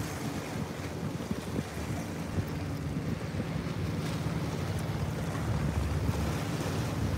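Wind buffeting the microphone over small waves splashing against seawall rocks, with a low steady hum underneath.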